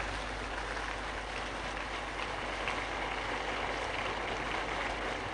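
Audience applauding: a dense, even patter of clapping with no music.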